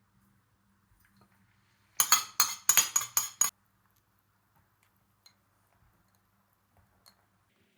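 A quick run of about six sharp clinks of hard objects with a brief ring, over about a second and a half.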